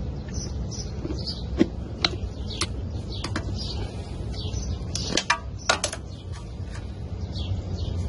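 Sharp metallic clicks and clinks of hand tools working on metal engine parts, with several louder knocks scattered through. Birds chirp repeatedly in the background over a steady low rumble.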